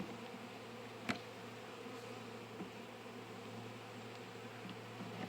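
Honeybees buzzing in a steady hum over an open hive whose frames are crowded with drones from a drone-laying queen. A single sharp click about a second in.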